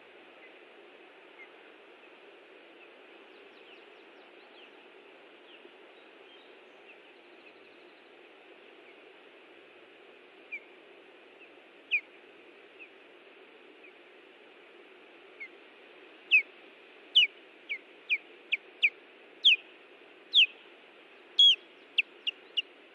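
Osprey giving sharp, whistled alarm calls in defence of the nest: a few scattered chirps, then a rapid series of loud ones over the last several seconds, over a steady background hiss.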